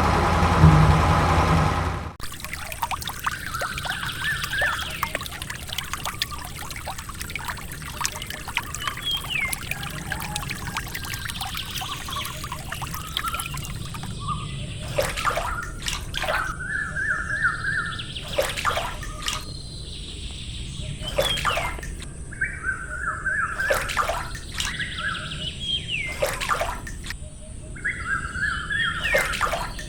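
Music cuts off about two seconds in, giving way to water trickling steadily under repeated bird chirps, which come in clusters every few seconds in the second half.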